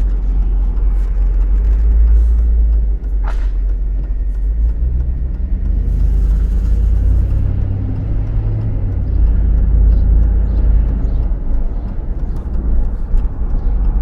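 Steady low rumble of a GMC Yukon Denali, with one short creak about three seconds in and faint scattered ticks.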